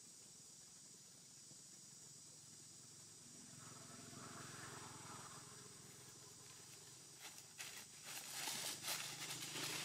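Insects buzzing steadily at a high pitch, with a faint low hum joining a few seconds in and a run of rustling, crackling clicks in the last couple of seconds.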